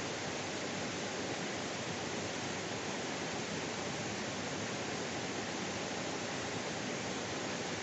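Steady rushing of a waterfall: continuous, even water noise with no changes.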